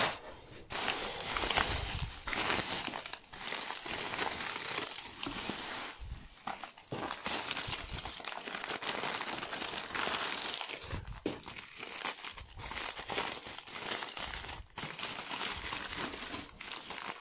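Bubble wrap and aluminium foil crinkling as gloved hands unwrap them, in irregular handling rustles and crackles throughout.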